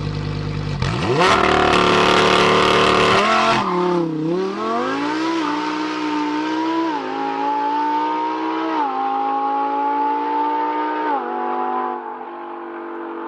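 Car engine sound revving hard, then climbing in pitch through the gears with a sharp drop at each shift, about four times, before easing off near the end.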